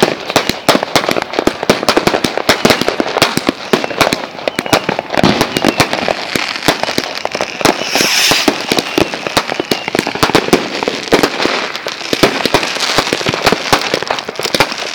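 Many firecrackers and fireworks going off at once, a dense, loud stream of sharp bangs and cracks several times a second with no let-up. A brief hiss cuts in about eight seconds in.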